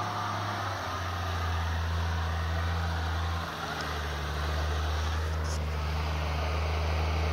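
Off-road 4x4's engine running at low revs as the vehicle crawls through long grass, its note shifting about a second in and dipping briefly around three and a half seconds in.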